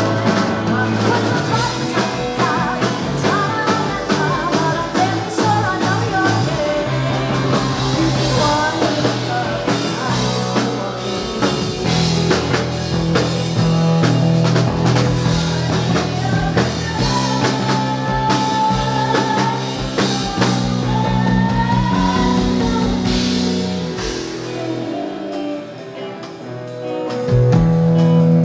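Live rock band playing: electric guitars over a drum kit, loud and full. It dips briefly near the end, then swells back up.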